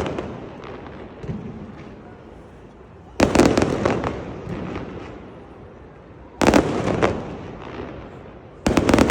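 Fireworks going off in three volleys, each a sudden cluster of sharp bangs and crackles that fades over a couple of seconds.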